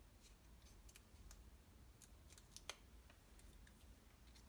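Faint paper-crafting handling noise: a few short, sharp snips and clicks from a small paper sentiment strip being handled, the loudest about two and a half seconds in.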